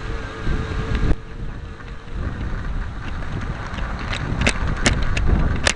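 Bachmann garden-railway rail truck running along the track, with a steady rumble from its motor and wheels picked up by a camera riding on it. In the second half come about five sharp clicks as the wheels cross the turnout's rail joints and frog.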